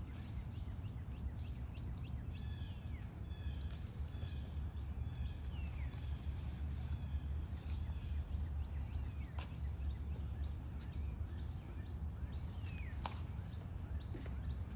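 Outdoor back-yard ambience: a steady low rumble underneath, with birds chirping in short repeated notes, strongest a couple of seconds in, and a few sharp light clicks later on.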